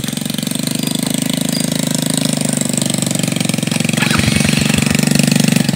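Small single-cylinder motorcycle engine idling with a rapid, steady putter. About four seconds in, a second motorcycle engine joins, lower and louder, as a dirt bike pulls up close.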